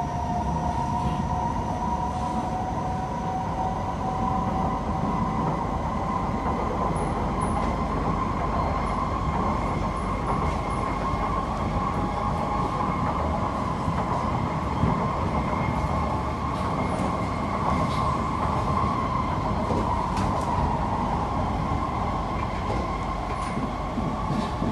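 Ride noise inside a Kawasaki–CSR Sifang C151B metro train running at speed: a steady rumble of wheels on rail with a high, even whine held at a constant pitch.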